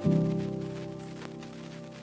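Background music: a keyboard chord struck at the start and slowly dying away.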